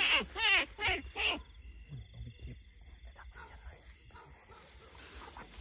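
A rat lure call blown in a quick series of squealing calls, each rising then falling in pitch, about three a second, stopping about a second and a half in. Only faint scattered rustling follows.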